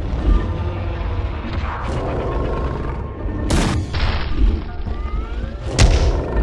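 Cartoon battle sound effects: a heavy low rumble with booms, and two sharp bangs, one about three and a half seconds in and one near the end.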